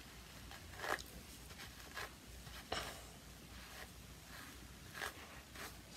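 Hairbrush bristles drawn through hair in faint short swishes, about one stroke a second.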